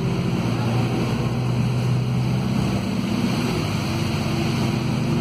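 Inside a Volvo B5RH hybrid city bus under way: a steady drone from the hybrid drivetrain under the hiss of tyres on a wet road.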